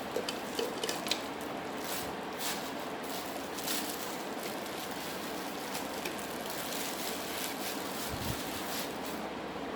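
Packaging and parts being handled: rustling and crinkling, with a cluster of small clicks in the first second, a few sharper ticks over the next few seconds and a low thump near the end.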